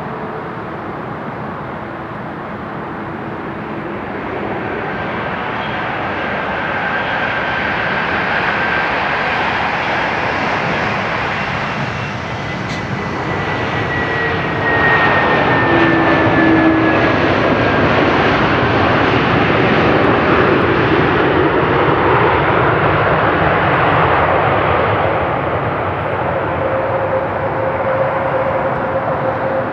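Airbus A321neo's jet engines passing close on landing approach: a steady engine noise that builds and is loudest in the second half, with a high fan whine that slides down in pitch as the aircraft goes by.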